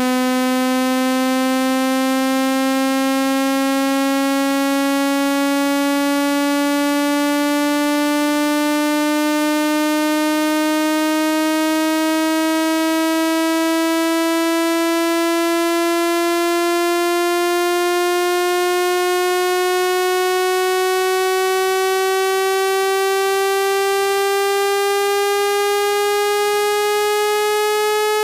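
Electronic speaker-cleaning tone: a single buzzy synthesized note, rich in overtones, held at a steady loudness and sliding slowly and evenly upward in pitch. It is played at full volume to vibrate water out of a phone's speaker grille.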